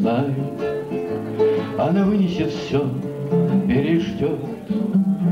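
A man singing a song to his own acoustic guitar accompaniment.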